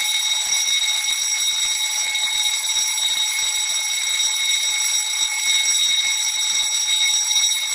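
Ship engine-room fire alarm sounding one continuous, unbroken high electronic tone over a steady hiss, the hiss of the high-pressure water mist system spraying into the engine room.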